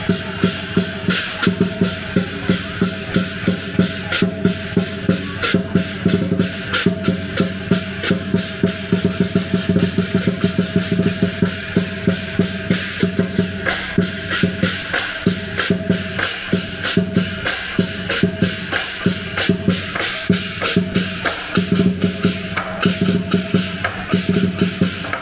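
Southern lion dance percussion band: the big lion drum beating a fast, driving rhythm together with gongs and crashing cymbals, several strokes a second without a break.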